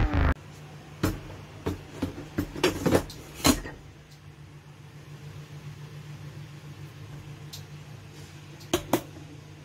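A rice cooker's inner pot being handled and set into the cooker: several short knocks and clicks of the pot against the cooker body, then a low steady hum, with two more clicks near the end.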